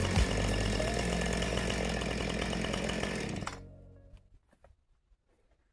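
Chainsaw engine running steadily, then cutting off about three and a half seconds in, leaving near silence.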